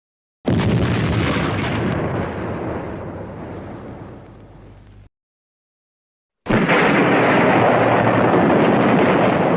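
Two explosion sound effects of the Super Sentai / Kamen Rider kind. The first bursts out about half a second in and rumbles away over some four seconds before cutting off. After a short silence the second bursts in and holds a loud, steady rumble.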